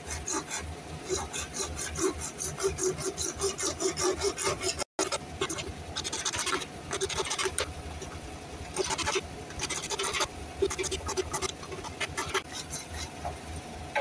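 Hacksaw blade cutting through PVC pipe by hand in quick back-and-forth strokes, about three rasping strokes a second, with a brief break about five seconds in before the sawing resumes.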